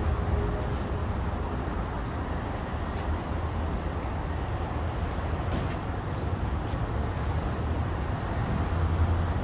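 Garbage truck's diesel engine running steadily nearby, a low, even rumble.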